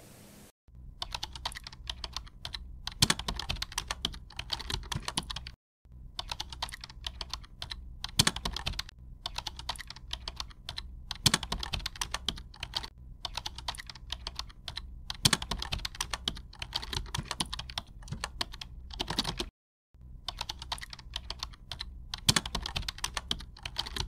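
Computer-keyboard typing sound effect: rapid, continuous key clicks with a few louder keystrokes every few seconds, stopping briefly about half a second in, near six seconds and near twenty seconds.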